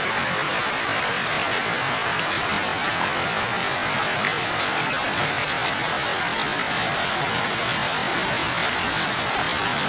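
Heavy tropical rain pouring steadily onto garden plants, leaves and bare ground, an even hiss with no letup.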